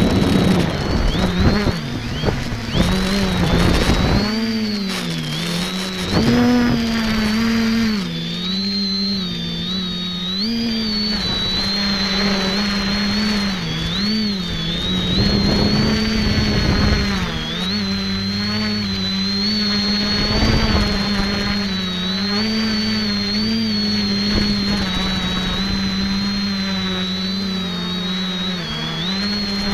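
Electric motors and propellers of an X550AIOP multicopter, heard from its own onboard camera in flight: a steady buzzing hum with a high whine above it, both wavering up and down in pitch as the throttle changes.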